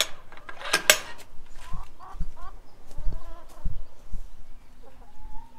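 The metal slide latch on a wire-mesh chicken-run door clacks twice about a second in. Then chickens cluck softly, with a few low thumps.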